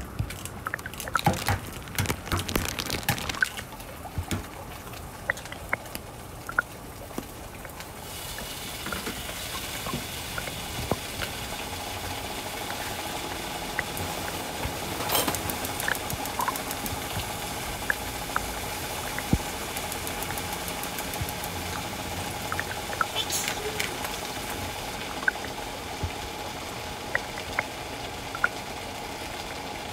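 An egg frying in a pan: a steady sizzle with scattered pops and crackles that sets in about eight seconds in, after a few seconds of sharp clicks and crackles.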